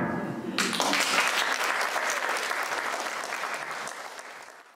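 The last sung note dies away and an audience breaks into applause about half a second in; the applause fades out near the end.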